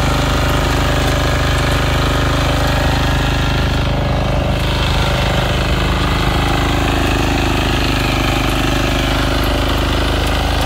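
Small engine of a walk-behind power tiller running steadily under load as its rotary tines churn through soil.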